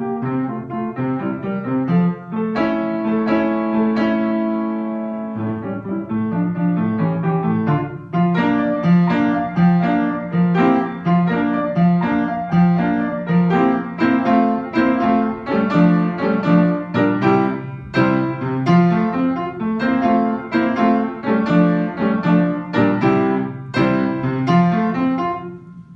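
Solo piano playing a classical piece at a steady, lively pace, with repeated chords and a moving bass line; the music stops near the end and the last notes fade away.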